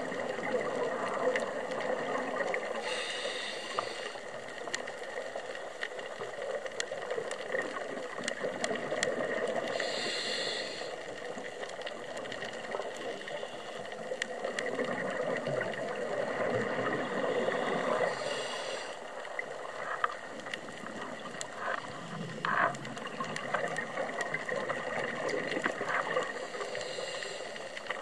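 Scuba diver breathing through a regulator, heard underwater: a short hiss on each inhale about every seven to eight seconds, with bubbly gurgling exhales in between and scattered faint clicks.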